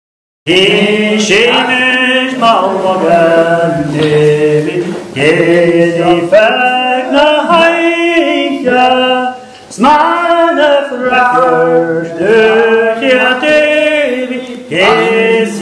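Unaccompanied singing in a chant-like song, starting abruptly about half a second in after silence.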